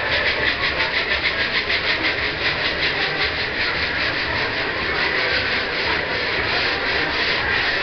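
Hand-sanding of a foam surfboard blank: rapid rhythmic rasping strokes, about five a second, over a steady rushing noise, the strokes easing off about halfway through.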